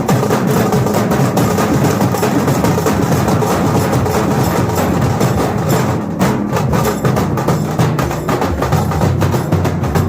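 Loud music with fast, driving drum beats, the strikes standing out more sharply from about six seconds in.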